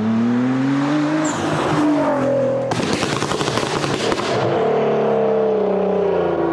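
Car engine revving hard, its pitch climbing, then a rapid volley of exhaust pops and crackles for about a second and a half, after which the engine note falls away.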